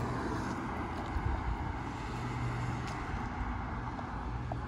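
Road traffic: a steady rumble of car engines and tyre noise, with a low steady hum.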